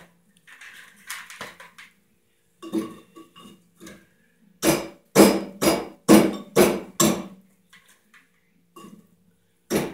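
Flattened scrap copper wire wafers being loaded into a crucible, clinking and clattering against each other, with a run of six loud knocks about two per second around the middle.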